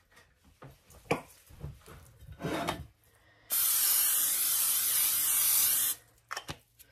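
Aerosol can of cooking spray sprayed into a baking pan: one steady hiss about two and a half seconds long, starting about halfway through and cutting off sharply. A few light knocks and clicks come before it.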